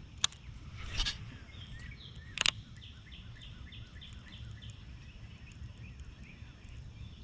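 A bird calling a steady series of short, falling chirps, about three or four a second, starting about two seconds in, over a low outdoor rumble. Two sharp clicks and a brief rustle come in the first few seconds.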